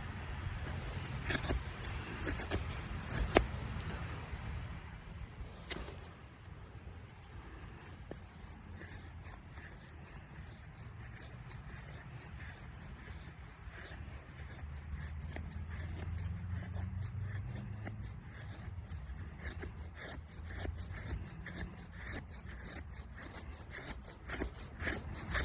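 Victorinox Venture knife shaving curls from a dry stick to make feather sticks: repeated scraping strokes of the blade along the wood, with a few sharp clicks in the first six seconds, then quieter strokes.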